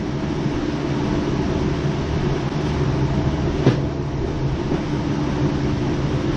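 Steady mechanical drone with a low hum, with one sharp click a little past the middle.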